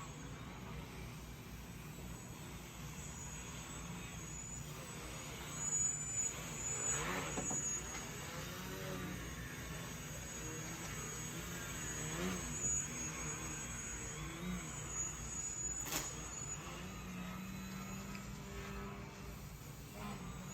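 An engine running steadily, with a few louder swells and one sharp click about sixteen seconds in.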